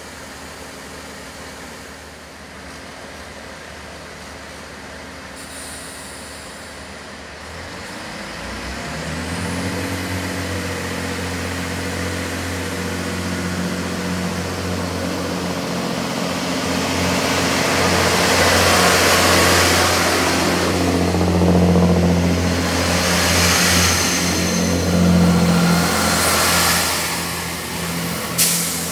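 Class 166 diesel multiple unit pulling away: its diesel engines run at a low idle, then power up about eight seconds in to a deep, steady drone. The sound grows louder as the train gathers speed and passes close by, with wheel and rail hiss added. A sharp click comes near the end.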